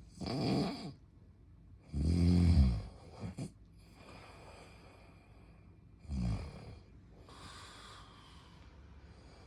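Snoring in separate breaths: a short snore, a longer and louder one about two seconds in, a brief one just after, another around six seconds, and a softer breath out near the end.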